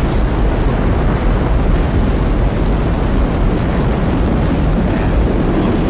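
Space shuttle launch: the rocket engines and solid rocket boosters at liftoff, a loud, steady, deep rumble.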